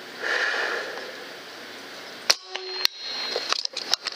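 A single sharp shot from a Benjamin Bulldog .357 big-bore PCP air rifle a little over two seconds in, followed by a short ringing tone about half a second long. A soft hiss comes before it, and several small clicks and knocks follow it.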